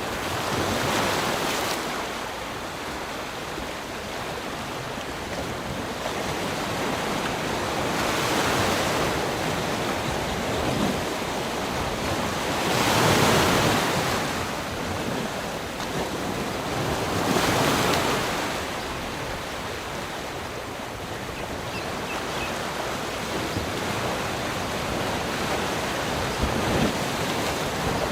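Rushing water: a continuous loud roar of falling or breaking water that swells and eases every few seconds.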